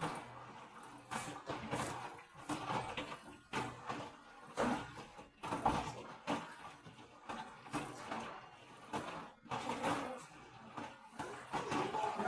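Electrolux W555H commercial front-loading washing machine in its final rinse, the drum turning the laundry through water in swishing surges about once a second over a low motor hum. It starts suddenly at the outset.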